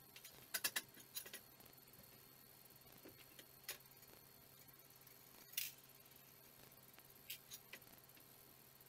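Scattered light clicks and taps of hand tools and small metal fittings while a hoverboard wheel is mounted on a go-kart frame: a quick run of three clicks near the start, a louder single click about halfway, and three more near the end, over faint room hiss.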